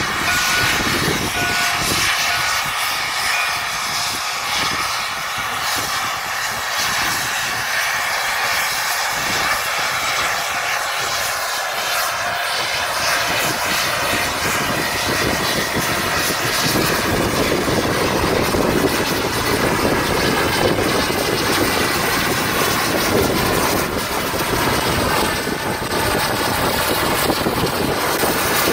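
Steam locomotive, a vintage 4-4-0, working as it pulls its passenger train past, with wind buffeting the microphone. Its deeper rumble builds through the second half as the engine draws alongside.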